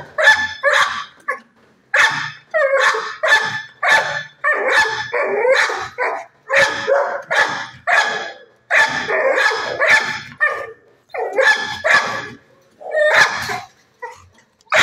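Dog barking over and over, about two barks a second in runs broken by short pauses.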